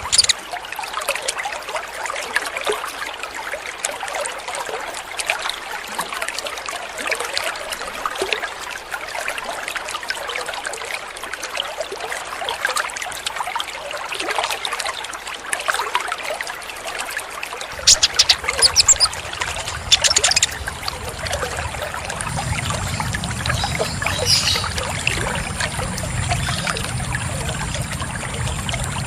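Water trickling steadily. About two-thirds of the way in come two loud short bursts of rapid high chirps or clicks, and a low hum joins from then on.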